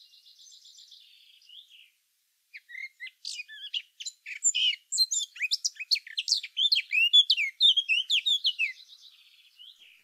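Recorded song of a blackcap: a quiet scratchy warble, then after a short pause a louder run of clear, fluty warbling notes that fades back into soft chatter near the end.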